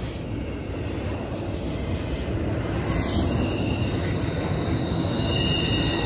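Train passing close by: a steady rumble of wheels on the rails that slowly grows louder, with high-pitched wheel squeal over it.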